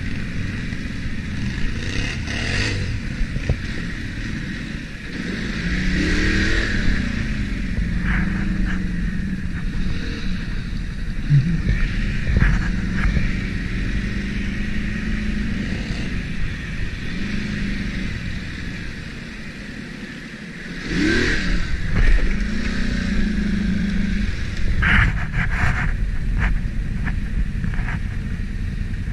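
ATV engine running on a trail, its pitch rising and falling as the throttle is worked. It eases to a lull about twenty seconds in, then revs up sharply. Short knocks and clatters come near the end.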